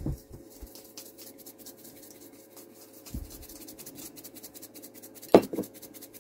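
Pepper shaken from a shaker into a pan of soup: a run of faint rapid ticks, with two sharp knocks a little after five seconds in. Under it, the steady hum of a heater.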